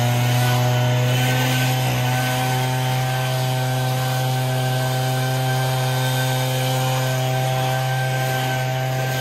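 Echo PB-8010 backpack leaf blower's two-stroke engine running steadily, a loud even drone with a hiss of rushing air.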